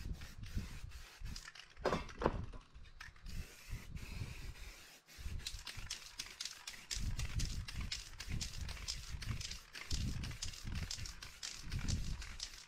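Aerosol spray paint can hissing in many short, quick bursts as paint is sprayed onto poster board, over an uneven low rumble.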